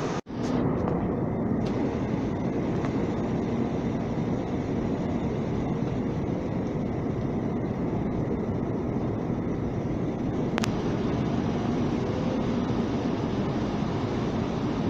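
Steady engine and airflow noise inside an airliner cabin in flight, with a low hum running through it. The sound cuts out for an instant just after the start, and there is a single sharp click about ten and a half seconds in.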